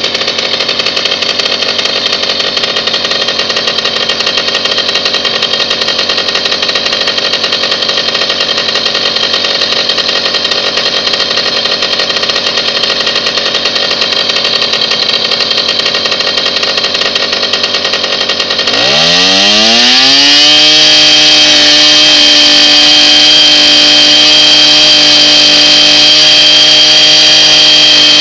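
Stella moped engine idling steadily at roughly 2,100–2,800 rpm. About two-thirds of the way through it revs up in a rising whine to around 9,000 rpm, holds there, and begins to drop off right at the end.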